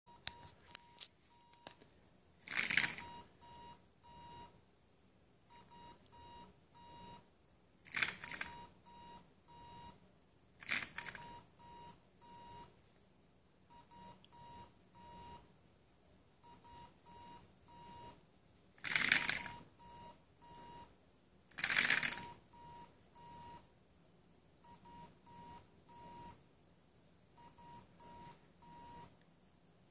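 Small electronic buzzer on a hobby microcontroller robot beeping in runs of short, even tones, about two a second, high-pitched with a ringing overtone. Five times the beeping gives way to a louder half-second burst of rattling noise.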